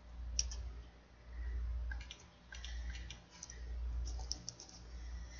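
Computer keyboard keystrokes and mouse clicks, scattered and irregular, over a low rumble that swells and fades a few times.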